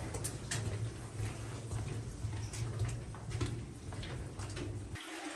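Scattered short knocks and clicks over a steady low rumble, which cuts off suddenly near the end.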